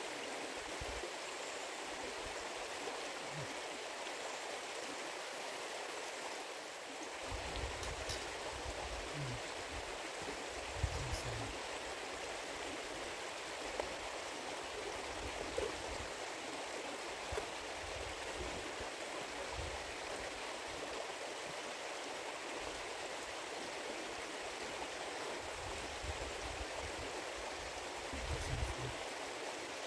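Little River, a forest mountain stream, rushing steadily over its bed. A few faint clicks and low bumps come and go over it.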